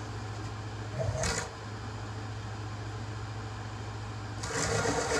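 A steady low hum with a brief knock about a second in. Near the end an electric drill starts, spinning a hickory dowel through a cutting die: a steady whirring that jumps up in level and keeps going.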